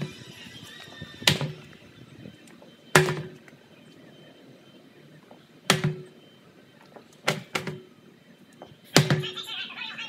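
Heavy thuds from a 173 lb tractor tire being flipped and slamming down on concrete, one every two to three seconds, with a short low ring after each. The audio is sped up to double speed.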